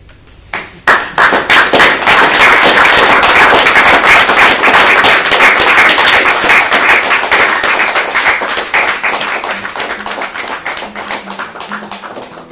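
Audience applauding: many hands clapping, starting about a second in, loudest through the middle and fading toward the end.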